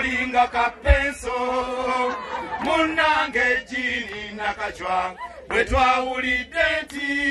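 Small robed choir of men and a woman singing a hymn-like chant together, holding sustained notes, the lead voice carried on a handheld microphone. Two brief low thumps, about a second in and near six seconds.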